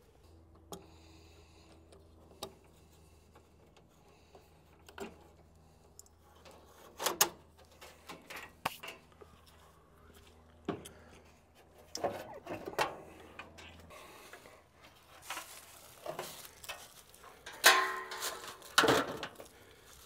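Metal clanks, knocks and rattles from a package heat pump's sheet-metal access panels and fasteners being handled. The strikes are scattered and grow busier in the second half, with the loudest near the end. A faint low hum runs under the first two-thirds and then stops.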